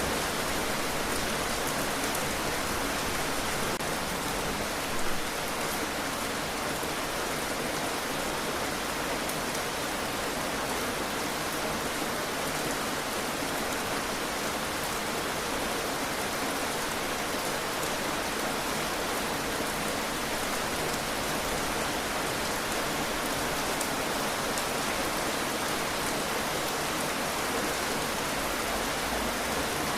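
Heavy rain falling steadily, a dense even hiss of drops on a surface, with one brief louder knock about five seconds in.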